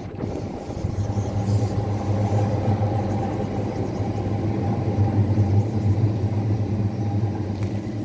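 Steady low rumble of a large engine running, with a deep hum.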